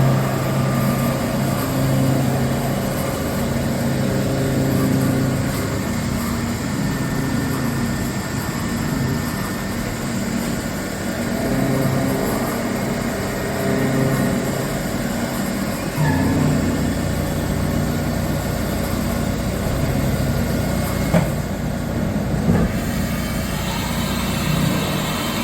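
HAAS VF-2 CNC vertical milling machine running with a steady mechanical hum, its low tones shifting every couple of seconds and stepping to a different note about two-thirds of the way through. A few sharp clicks come near the end.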